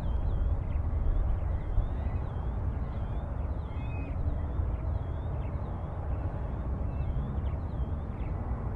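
Steady low rumble of a car heard from inside the cabin, with faint high chirps repeating about twice a second over it.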